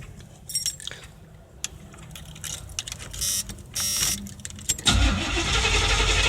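Keys jangling and clicks at the ignition, then about five seconds in the starter of a 1984 Chevrolet Monte Carlo begins cranking the engine steadily without it firing.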